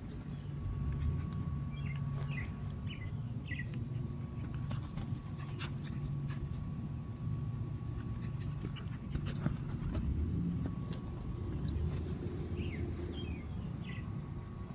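Toy poodle puppies giving short, high yips in two brief clusters, one near the start and one near the end, over a steady low rumble and scattered light clicks.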